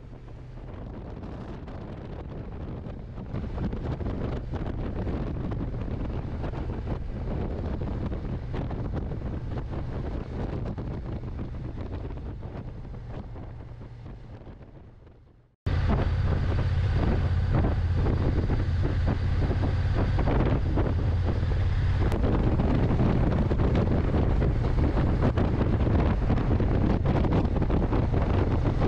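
Wind rushing over the microphone on a moving motorcycle, with the steady drone of the Honda NT1100's parallel-twin engine underneath. The sound fades in, fades out about halfway, then cuts straight back in louder.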